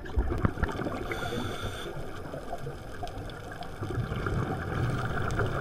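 Muffled water trickling and gurgling around an underwater camera, with scuba regulator bubbles.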